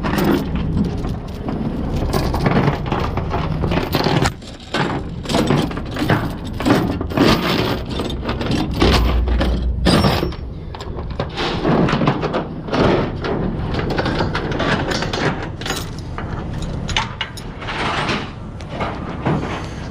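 Irregular knocks and clanks, many of them sharp, over a steady low engine rumble.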